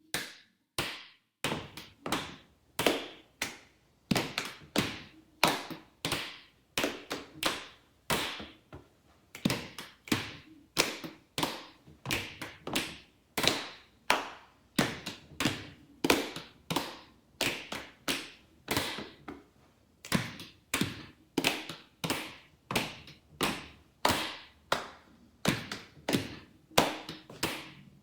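Two people performing a body percussion canon: stomps, hand claps, thigh and belly slaps and finger snaps in a steady repeating rhythm, the second player's part overlapping the first.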